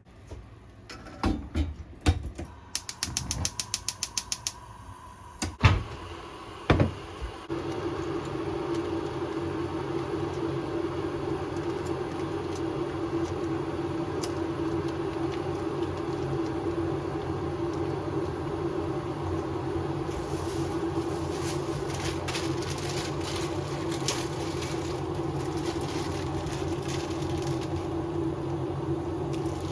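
A few knocks and a quick run of clicks, then about seven seconds in a steady mechanical hum starts and runs on evenly.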